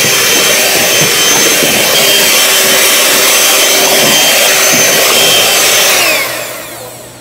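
A high-speed electric motor, such as a kitchen mixer or blender, running loud and steady with a whine, then switched off about six seconds in and winding down in pitch as it fades.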